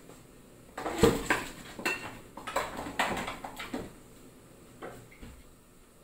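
Kitchen containers and utensils being handled: a run of clinks and knocks for about three seconds, then a couple of fainter knocks near the end.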